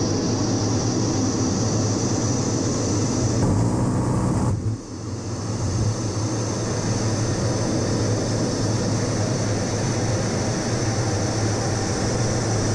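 Steady in-flight cockpit noise of an A-10C Thunderbolt II: a low hum from its twin turbofan engines with a thin high whine and rushing airflow. About three and a half seconds in, a deeper rumble swells for about a second, then the noise dips sharply for a moment before settling back to the steady hum.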